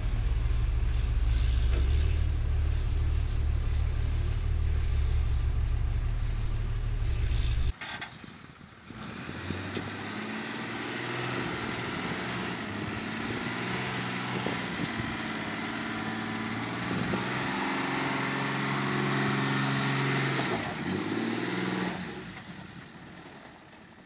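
A heavy low rumble, then a pickup truck's engine revving hard under load as it pulls a gooseneck trailer stacked with round hay bales. Its pitch rises and falls in steps for about twelve seconds before dying away.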